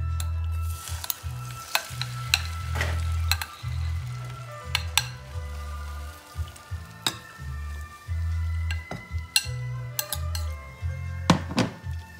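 Beaten egg and kale mixture sizzling as it is spooned into a hot oiled frying pan, with a metal spoon clinking and scraping against the bowl and pan many times.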